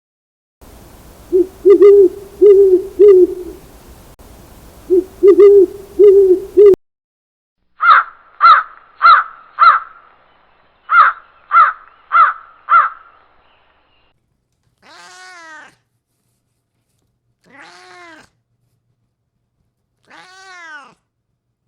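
Bird's low hooting calls in two groups of three. Then a run of eight short, sharp calls in two groups of four. Then a domestic cat meowing three times, each meow rising and then falling.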